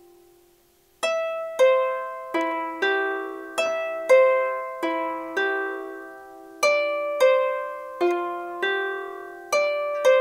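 Harp strings plucked by hand: after a short pause with the last notes dying away, plucked notes start again about a second in and follow at about two a second as a melody, each note ringing on under the next.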